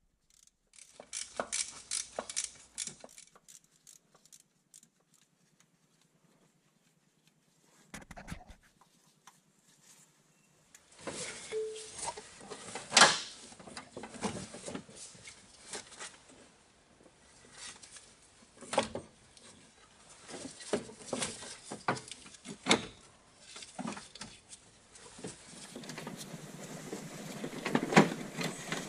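Scattered clicks, taps and clinks of hand tools against metal car parts, in irregular clusters with stretches of silence between.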